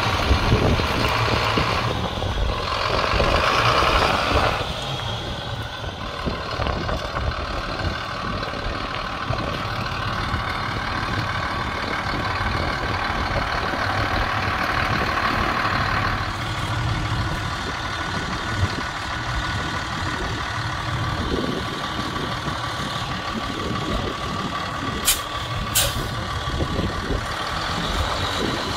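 A 2005 Freightliner Business Class M2 truck tractor's diesel engine idling steadily. There is a stretch of hissing air about two to four seconds in, and two sharp clicks near the end.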